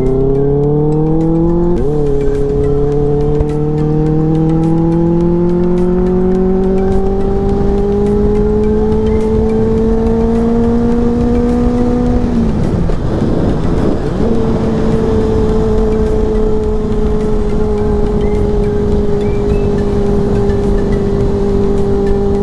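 Kawasaki ZX-10R's inline-four engine pulling hard with wind rushing over the helmet camera. The revs climb and drop at a gear change about two seconds in, then rise slowly for about ten seconds. Past the middle the note breaks up for about two seconds, then settles into a steady cruise.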